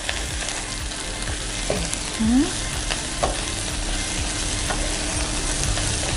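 Baby lettuce, beef and cherry tomatoes sizzling in oil in a frying pan while a wooden spatula stirs and tosses them, scraping and tapping the pan several times. A brief rising tone sounds about two seconds in.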